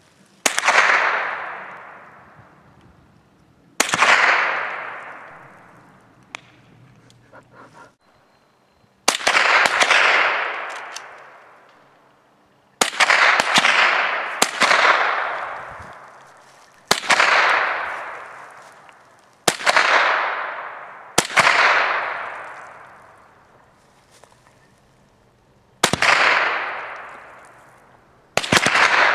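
.22 rimfire rifle firing about ten single shots a few seconds apart. Each sharp crack is followed by a long echo that dies away over two to three seconds.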